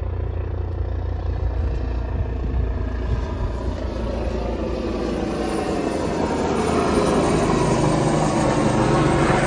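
Low-flying helicopter passing over: a steady rotor beat and engine sound that grows louder from about halfway through as it comes closer.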